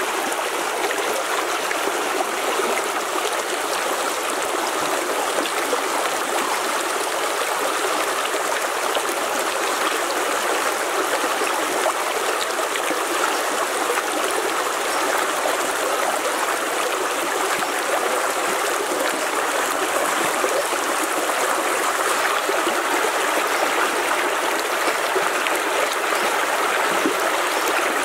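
Shallow stream rushing over rocks, a steady flow of running water.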